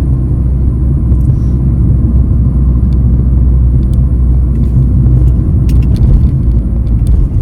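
Steady low rumble of a car on the move, engine and road noise heard from inside the cabin, with a few light clicks near the end.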